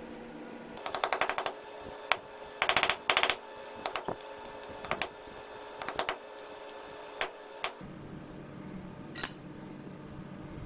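Metal-on-metal clicking as a steel rod is worked against a thin metal plate. Two quick runs of clicks come about one second and about three seconds in, then scattered single and double clicks. One sharp, ringing click near the end is the loudest.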